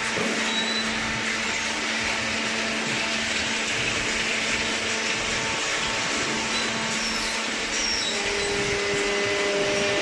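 Industrial machinery running steadily: a constant motor hum with a hiss over it, and a second steady tone joining near the end.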